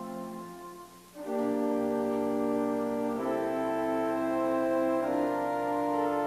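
Church organ playing slow sustained chords in a hymn-like interlude. One chord releases about a second in, then a new chord enters and moves to the next roughly every two seconds.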